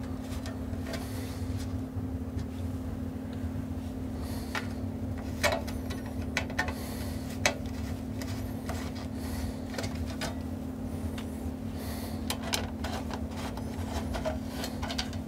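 Scattered light clicks and clinks of metal hardware and panels as a Heathkit SB-220 amplifier is taken apart, several sharp ones in the middle, over a steady low hum.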